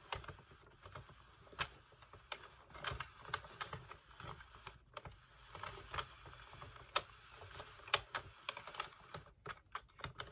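Faint, irregular light plastic clicks and taps as yarn is woven in front of and behind the plastic hooks of a Sentro 40-pin knitting machine while casting on.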